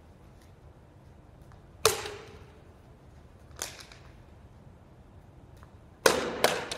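Sharp knocks echoing in a gym hall as a bat strikes a tossed plastic water bottle. There are four in all: a loud one about two seconds in, a softer one a little later, and a close pair near the end.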